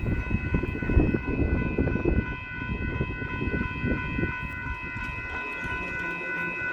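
Union Pacific freight train led by the Katy heritage locomotive passing close by. Its rumble and wheel knocks are heaviest in the first few seconds and then ease off. A steady high-pitched tone sounds throughout.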